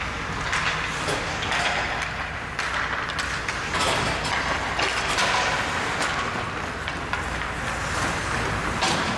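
Ice hockey play: skate blades scraping the ice, with short clacks of sticks and puck at intervals.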